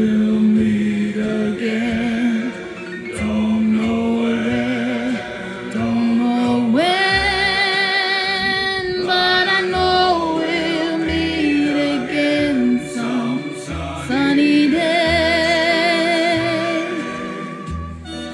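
Vocal music: voices singing long held notes with vibrato, in harmony, over a low instrumental bass line.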